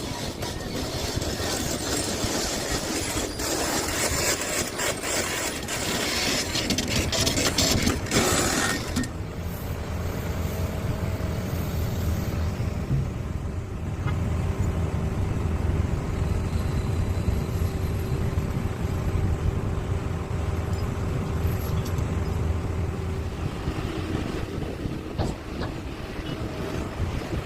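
A Komatsu PC650LC hydraulic excavator working. For about the first nine seconds there is loud clattering and hissing with many knocks, which cuts off suddenly. After that the machine's diesel engine runs with a steady low drone.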